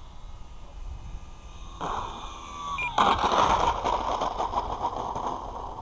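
Electric RC model plane (E-flite P-51D Mustang 1.2m) landing on a dirt strip. A faint motor whine falls slightly in pitch, then about three seconds in the wheels touch down and roll over the rough ground with a loud scraping rattle that fades away.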